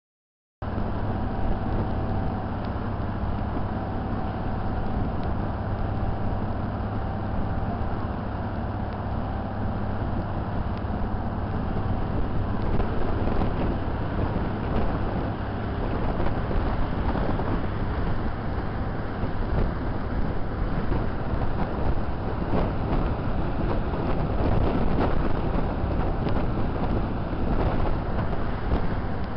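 A fast passenger boat under way at speed: a steady low engine drone mixed with rushing wake water and wind buffeting the microphone, cutting in abruptly about half a second in.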